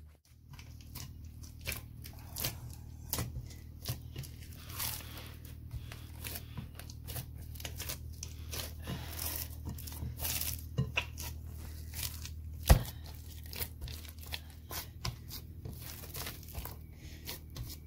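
Hands kneading a stiff flour-and-semolina dough in a bowl: irregular squishing, pressing and crumbling sounds as the crumbly mix is worked together with water, with one louder knock about thirteen seconds in. A steady low hum runs underneath.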